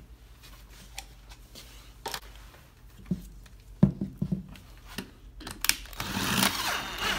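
Knocks and clunks as a washing-machine motor is handled on a tabletop, then about six seconds in a cordless drill is put to the motor shaft and runs with a rising, hissy whir.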